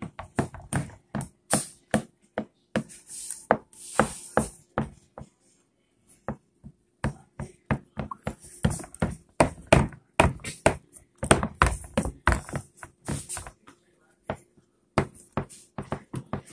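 Irregular knocks and taps of a baking pan on a stone counter as hands press pie dough into the pan's rim and corners, coming in quick runs with short pauses about five seconds in and again near the end.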